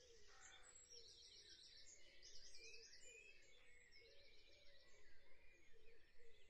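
Near silence: faint background noise with faint scattered high chirps.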